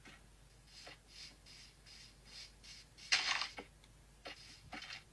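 Minecraft footstep sounds from the game: a quick run of soft, scratchy steps, about three a second, on sand and grass, with a louder burst about three seconds in and a few scattered steps after it.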